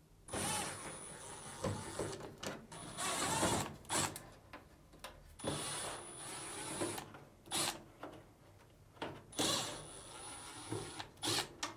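Cordless drill-driver backing out four Phillips screws from a Samsung dryer's control panel. The motor runs in four separate spells of one to two seconds, each with a thin high whine, and there are short clicks and taps of handling in between.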